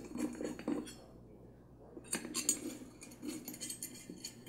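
Small screws and camera-cage parts clinking and clicking as they are handled and fitted by hand into the grip and base plate. There is a scatter of light clicks at first, a short lull, then a busier run of clicks about two seconds in.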